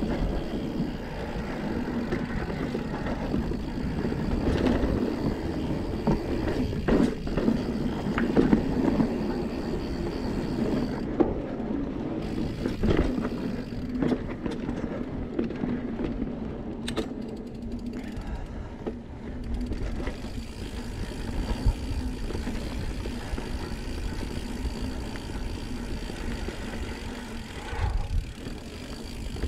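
A 2019 Santa Cruz Blur mountain bike rolling down a dirt singletrack: a steady rumble of tyres on the trail, with a few sharp knocks and rattles from the bike over bumps.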